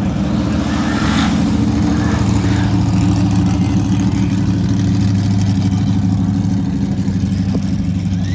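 Car engine running loudly at steady revs, a low, steady rumble with no rev sweep.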